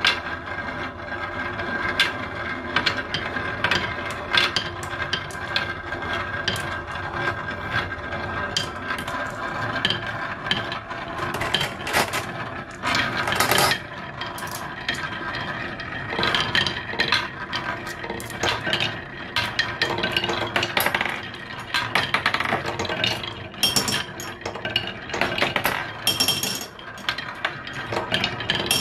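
Several glass marbles rolling along the grooves of carved wooden zigzag and serpentine marble-run tracks: a steady rolling rumble with many irregular clicks as they knock against the turns and each other.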